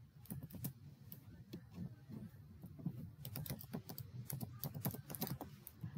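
Faint typing on a computer keyboard: a run of irregular keystroke clicks.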